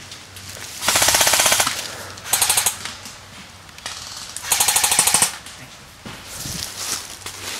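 Airsoft rifle firing three fully automatic bursts of rapid, evenly spaced shots, the first about a second in and the last about four and a half seconds in.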